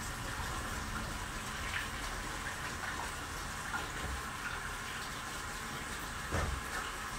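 Kitchen tap running steadily into a sink while hands are washed, with a few light knocks.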